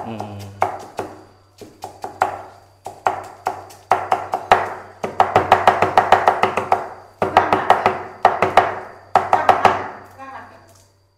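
Heavy cleaver rapidly mincing boiled pork and herbs on a thick round wooden chopping block. The knocks come in quick bursts of several strokes a second, with short pauses between, and each burst rings with a hollow wooden tone.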